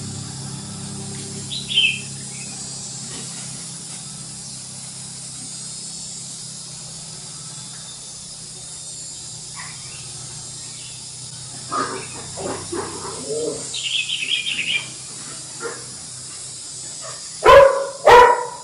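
Animal calls: a brief high chirp about two seconds in, a run of short calls starting about twelve seconds in, and two loud calls just before the end.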